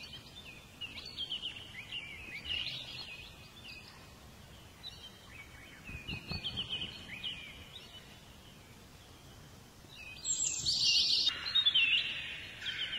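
Birds chirping in short bursts of quick, high, sliding notes over a faint steady background hiss, growing louder and denser about ten seconds in.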